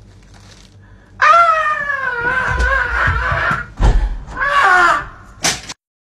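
A person's long, high-pitched scream, then a shorter cry that falls in pitch, with two heavy thuds in between, like feet stamping on the floor.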